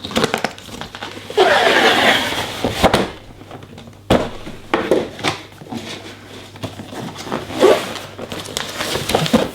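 A cardboard product box being opened and its packaging handled: irregular rustling and scraping, loudest about one and a half to two and a half seconds in, with several sharp knocks and thuds.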